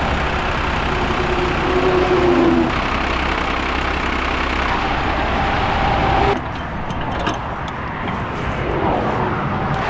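Steady low engine hum with motorway traffic noise. About six seconds in the sound changes abruptly, and a few sharp clicks follow.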